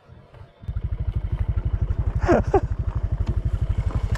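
Honda Supra X 125 motorcycle's single-cylinder engine starting under half a second in and running with a rapid, even pulsing. About two seconds in, two short falling calls sound over it.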